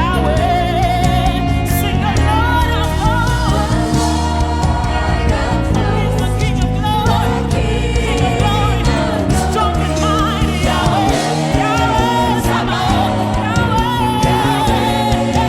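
Live gospel worship music: a choir and lead vocalists singing over a full band with steady bass and keyboards.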